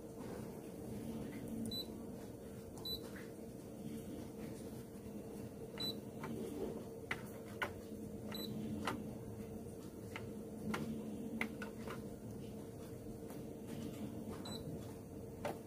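Canon imageRUNNER copier control panel giving several short, high beeps as its touchscreen keys and buttons are pressed, with small clicks of fingers on the keys. A steady machine hum runs underneath.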